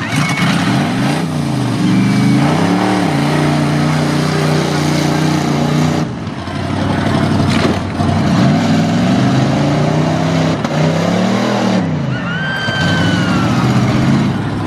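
Demolition derby pickup truck engines revving hard, pitch rising and falling repeatedly as the trucks shove into one another, with a sharp knock of impact about eight seconds in.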